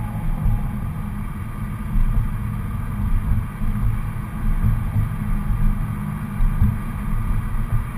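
Dodge Dart GT's 2.4-litre MultiAir four-cylinder idling through its stock exhaust, a low, uneven rumble with no revving.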